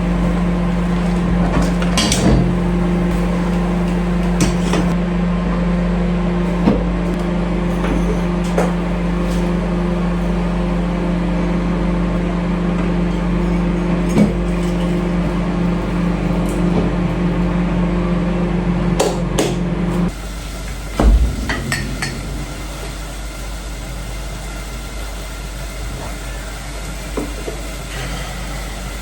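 A kitchen appliance humming steadily, cutting off suddenly about two-thirds of the way through, with scattered clinks and knocks of dishes and utensils and a louder knock just after the hum stops.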